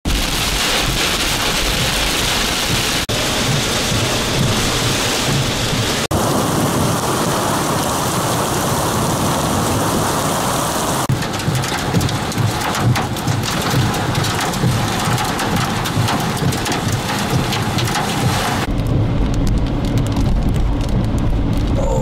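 Heavy wind-driven rain pelting a vehicle's windshield and body, with a low rumble underneath. The rain noise changes abruptly several times as the shots are cut together.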